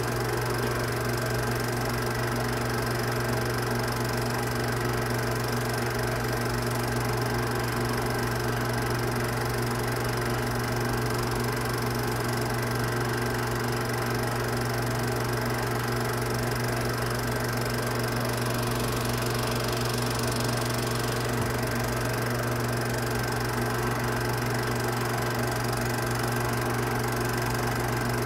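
Film projector running: a steady, unchanging mechanical hum and whir.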